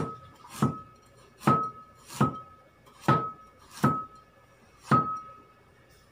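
A steel cleaver chopping ginger into thin slices on a wooden board: seven sharp strikes, a little under one a second, each followed by a brief ringing note. The chopping stops about five seconds in.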